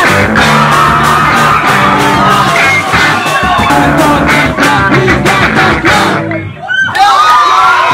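Live punk rock band playing: electric guitars, drum kit and a singer into a microphone. A little over six seconds in the band stops short for about half a second, then crashes back in with a long falling glide in pitch.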